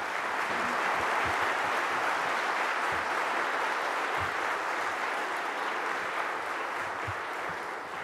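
Audience applauding: a steady spread of clapping that swells up in the first second and tapers off near the end.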